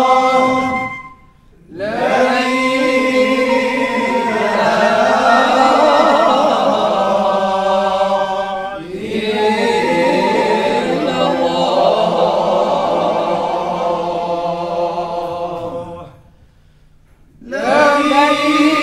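A group of male voices from a Moroccan Sufi samā' ensemble chanting together in long, wavering held phrases. They break off twice for a pause of about a second, once soon after the start and again near the end.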